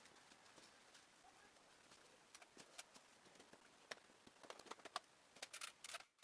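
Faint, scattered light clicks and taps over quiet background hiss, coming more thickly in the last two seconds.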